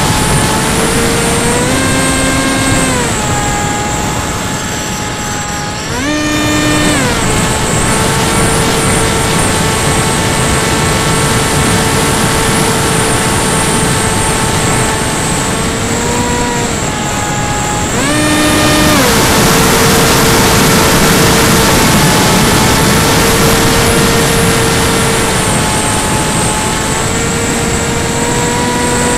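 Small electric motor and propeller of an FPV model aircraft whining. The pitch holds steady, then glides down and back up several times as the throttle changes. Under it is a strong rush of wind over the onboard camera's microphone, louder for a stretch about two-thirds of the way through.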